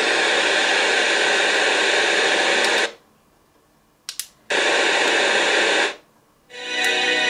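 FM static from a small portable radio's speaker, tuned off-station: a loud, even hiss. It cuts out twice for about a second, with two short clicks in the first gap. Near the end it comes back with faint tones under it as a station begins to come through.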